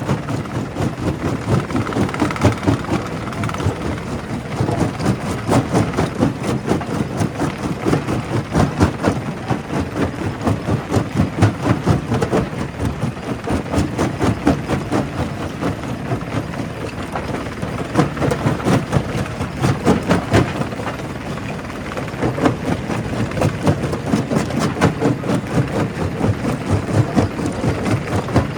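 Primary rock crusher running, crushing stone with a continuous rapid clatter of knocks and grinding over a steady low machine rumble.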